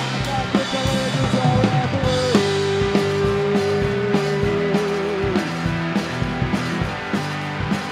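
Live blues band playing: a drum kit keeping a steady beat with bass drum and cymbals under guitar. In the middle the singer holds one long note that wavers and falls away.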